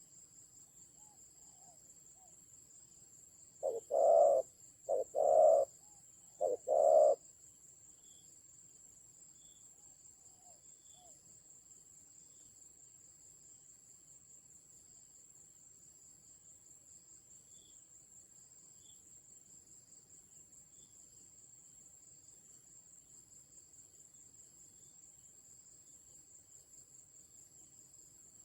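Spotted dove cooing: one phrase of three paired notes, each a short note followed by a longer one, starting about four seconds in. A steady, high-pitched insect trill runs underneath throughout.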